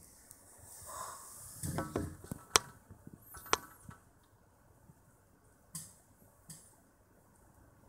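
Wooden Jenga blocks clicking and tapping against each other as a block is worked out of the tower: a cluster of light clicks about two seconds in, then two sharp clicks a second apart, and a few fainter taps later.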